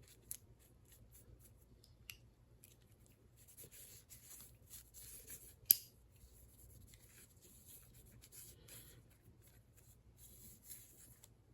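Faint rubbing of a solvent-dampened rag wiping the outside of Smith & Wesson handcuffs, in many short scraping strokes, with a sharp click a little over halfway through.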